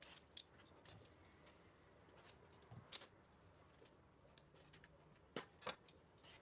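Faint, short scrapes and clicks of a vegetable peeler stripping the skin off an eggplant, a few separate strokes with near silence between; the two clearest come about five and a half seconds in.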